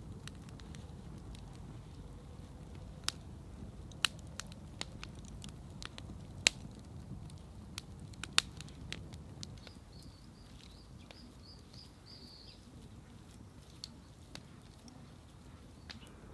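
Wood fire crackling with scattered sharp pops, over a low steady outdoor rumble. A bird gives a quick string of high chirps about ten seconds in.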